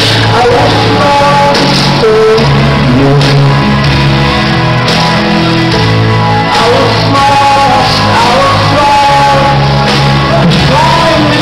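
Rock song played by a band, with guitar and singing over a steady, full accompaniment.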